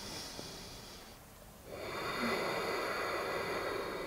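A person breathing: a soft breath, a short pause about a second in, then one long, steady breath lasting about three seconds.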